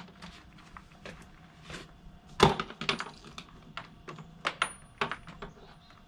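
Scattered light clicks and knocks as the camper's outdoor shower fittings and valve are handled, with one sharper click about two and a half seconds in.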